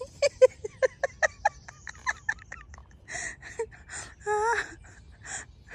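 A person laughing: a quick run of "ha" pulses, then breathy, gasping laughs with a short voiced squeal near the end.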